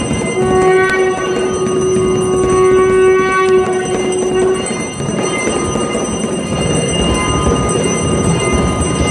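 Aarti worship sounds: a conch shell blown in one long steady note of about four seconds, over continuous ringing and clanging of bells.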